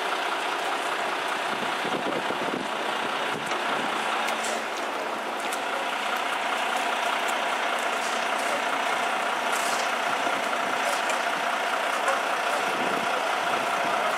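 A heavy truck's diesel engine running steadily, with faint scattered clicks.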